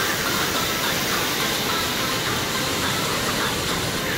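Steady rush of the Rain Oculus, an indoor waterfall falling one storey through a hole in a large acrylic bowl and splashing into a pool.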